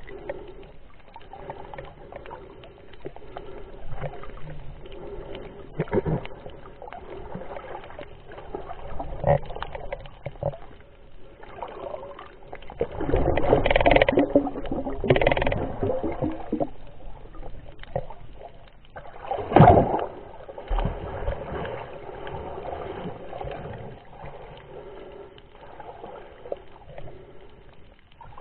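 Muffled underwater sound from a snorkeller's camera: water moving and sloshing against the housing. It grows louder for a few seconds near the middle, with one short, loud splash-like burst a little later.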